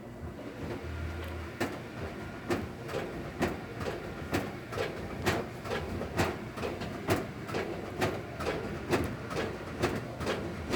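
Washing machine knocking rhythmically, about one sharp bang a second, over a steady running rumble.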